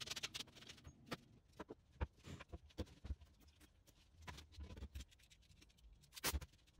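Quiet, irregular clicks and light knocks of wooden slats and tools being handled on a workbench, with sharper knocks about two seconds in and again just after six seconds.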